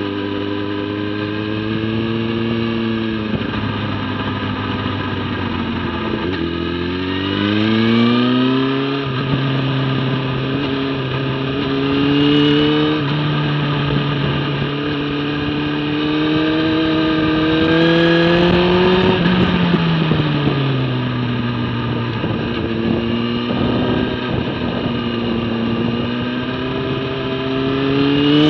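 Motorcycle engine at speed on a race track, its revs falling and rising with throttle and gear changes: dropping a few seconds in, climbing hard around 6 to 9 seconds, rising slowly to near 19 seconds, falling again, then climbing toward the end.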